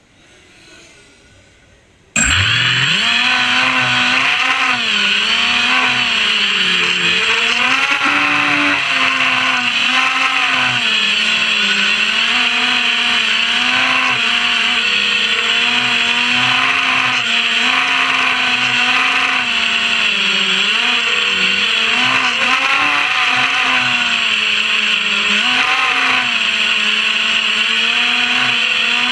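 FPV racing quadcopter's brushless motors and propellers, heard from its own onboard camera, spinning up suddenly about two seconds in and then whining steadily. The pitch keeps rising and falling as the throttle changes through the race course.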